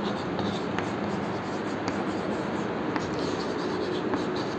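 Chalk scratching on a blackboard as words are written, with a few light taps of the chalk.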